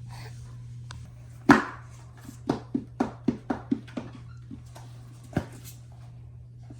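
Handling noise from a phone held in one hand: a sharp knock, then a quick run of sharp taps and clicks, about five a second, and one more knock later. A steady low hum runs underneath.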